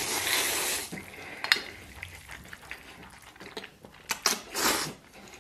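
A person slurping instant noodles: a long, loud slurp at the start and another about four and a half seconds in, with chewing and a few sharp clicks between.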